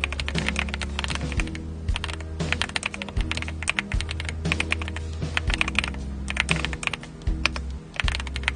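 AULA F75 mechanical keyboard being typed on: quick runs of key clacks in bursts, with brief pauses about two, four and six seconds in. Background music with steady low notes plays underneath.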